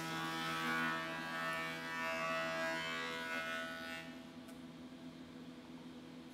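Surface planer (jointer) cutting a plank as it is fed across the cutter block: a steady whine thick with cutting noise for about four seconds. The cut then stops and the machine runs on with a quieter steady hum.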